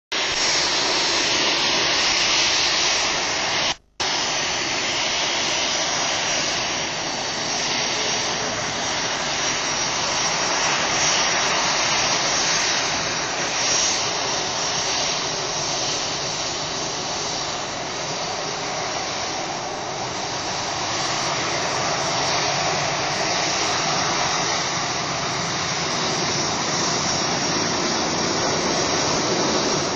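Boeing 737-500's CFM56-3 jet engines running at low taxi power, a steady roar with a constant high whine. The sound drops out briefly about four seconds in.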